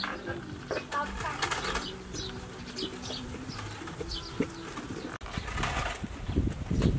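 Doves cooing with small birds chirping, and a louder low rumble about six seconds in.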